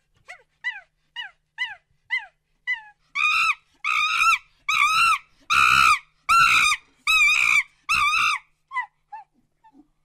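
A monkey calling in a series: short falling yelps about two a second, building about three seconds in into seven longer, louder wavering calls, then tapering off to a few short notes near the end.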